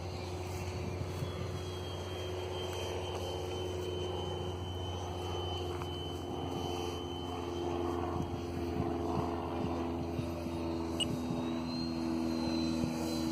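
Radio-controlled model jet flying overhead, its engine heard as a steady hum with a thin high whine that steps up in pitch near the end.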